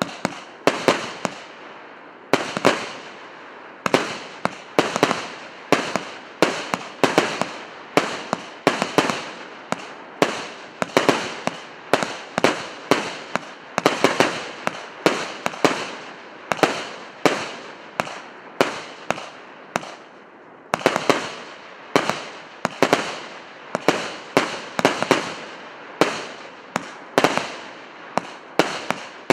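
A 100-shot, 1.2-inch firework cake battery ('Solar Wind' P8322) firing shot after shot, about two sharp bangs a second, each with a short crackling tail. There is a brief pause about 20 seconds in before the volley resumes.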